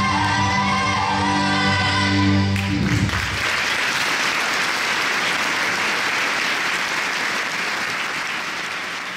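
A gospel choir with keyboard accompaniment holds its final chord, cut off about three seconds in; the audience then applauds, the applause fading out near the end.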